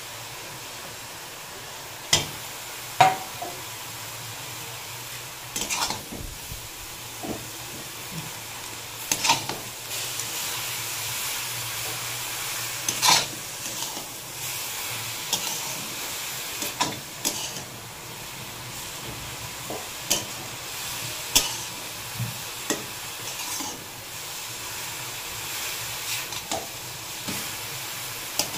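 Metal spatula stirring and scraping a frying vegetable-chop filling of grated beetroot, carrot, peas and mashed potato in an aluminium kadai, over a steady sizzle. Sharp scrapes and knocks of the spatula against the pan come every one to three seconds.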